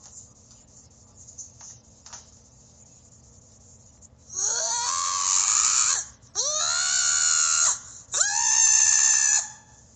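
Three long, high-pitched screams, each rising in pitch as it starts, coming in quick succession after a few quiet seconds.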